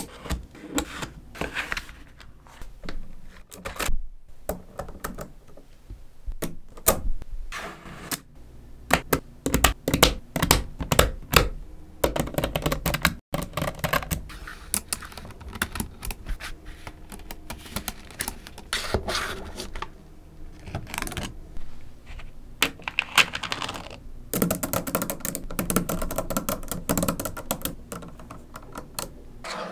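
Small magnetic balls clicking and clacking as slabs of them are snapped together and pressed into place, in irregular bursts of quick sharp clicks, densest near the end.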